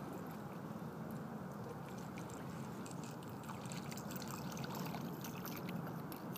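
Fishing reel being cranked while a hooked fish pulls on the bent rod, its high clicks coming in irregular runs, most densely in the second half, over a steady low rushing noise.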